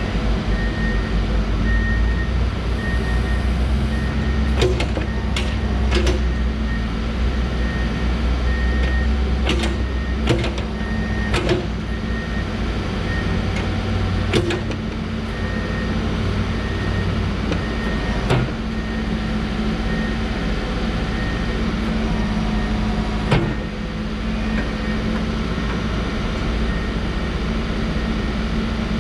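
Case 590 Super N backhoe loader's diesel engine running steadily while the machine is worked, with about nine sharp knocks scattered through it and a high beeping tone pulsing on and off.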